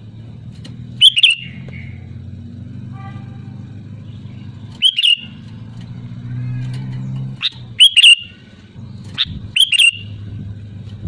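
Sooty-headed bulbul giving short, sharp call notes, some in quick pairs, about six in all and spaced a second or more apart. A steady low hum runs underneath.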